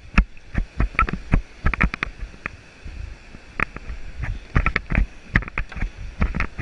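Kayak running down a rock slide: fast water rushing and splashing around the hull and paddle close to the microphone, with many sharp, irregular knocks and splashes.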